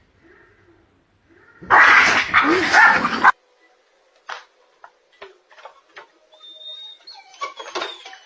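A dog vocalizing loudly for about a second and a half, stopping abruptly, followed by scattered quieter clicks and knocks.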